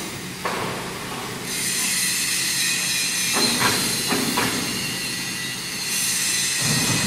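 Steady factory-floor machinery noise: a high-pitched metallic whine and hiss over a low hum, with a few short knocks about halfway through.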